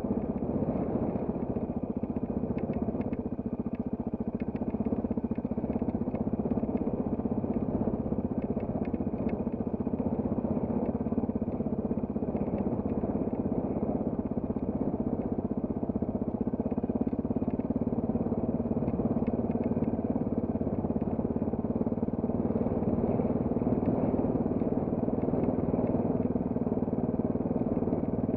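Trail motorcycle engine running steadily while riding, its pitch rising and falling a little.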